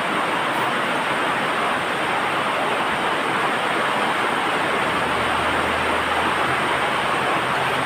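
A loud, steady rushing noise, even and unbroken, with a faint low hum coming in and out about five seconds in.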